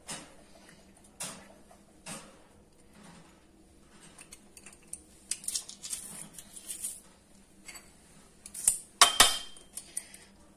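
Kitchen utensils knocking and clinking against dishes. A few separate knocks come first, then a run of light clicks, and about nine seconds in the loudest clatter, with a short ringing metallic clink.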